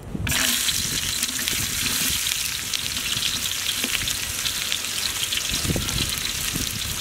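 Hot oil sizzling loudly in a large aluminium pot as chopped vegetables are slid in from a plate, the sizzle starting suddenly about a quarter second in and holding steady.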